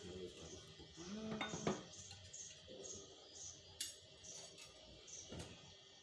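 Steel gears and shafts of a Sinotruk HW19710 truck gearbox clinking and knocking against each other as they are handled during reassembly, with a sharp click a little before four seconds in.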